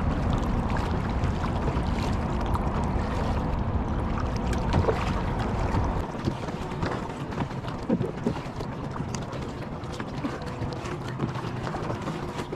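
Kayak being paddled, with water splashing and small knocks against the hull, under wind rumbling on the microphone; the wind rumble drops away about six seconds in.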